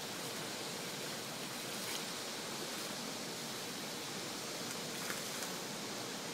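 Steady, even rushing hiss of outdoor background noise, with a couple of faint short ticks about five seconds in.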